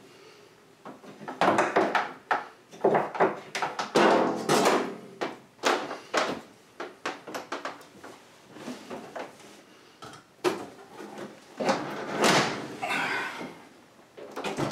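Irregular knocks, clunks and scrapes of hands handling an over-the-range microwave and its metal mounting hardware, starting about a second in.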